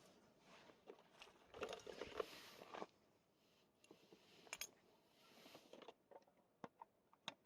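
Faint rustling with scattered small clicks and taps, busiest between about one and a half and three seconds in, then a few sharp ticks near the end.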